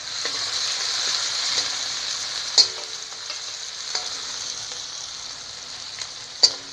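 Onions frying and sizzling in hot ghee in a kadhai, the sizzle swelling as they go in, while being stirred; two sharp clinks of the stirring spoon against the pan, one partway through and one near the end.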